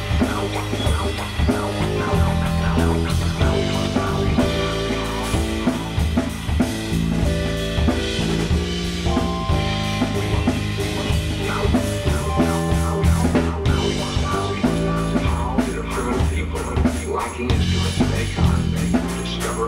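Live band music: a drum kit beat with cymbals over sustained bass and keyboard notes. The drumming grows busier in the last few seconds.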